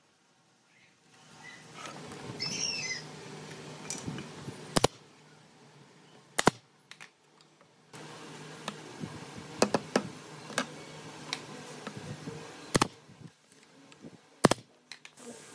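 Pneumatic brad nailer firing several sharp shots into pine slats, with lighter clicks of small wooden pieces being handled, over a low steady hum. A bird chirps briefly about two seconds in.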